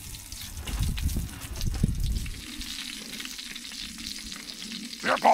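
Bratwurst sizzling and crackling as it cooks, a steady frying hiss, with some low rumbling in the first couple of seconds.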